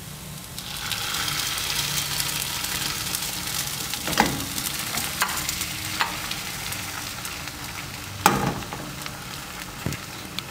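Egg whites sizzling as they are poured into a hot oiled frying pan over fried asparagus, chile and spring onion; the sizzle swells about a second in and holds steady. A few sharp knocks come through the sizzle.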